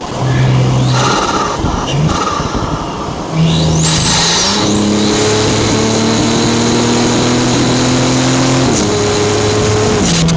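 Tuned, turbocharged Audi SQ5 accelerating. About three seconds in the engine note gets louder and starts climbing in revs, joined by a high turbo whistle that rises and then holds. Engine note and whistle drop off sharply near the end.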